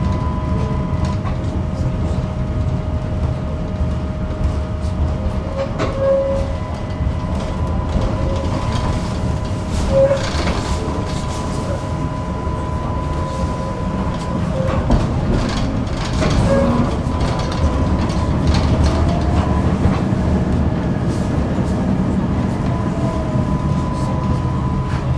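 Tram running along its rails: a steady low rumble with a constant whine over it, and a few sharp clacks from the wheels on the track.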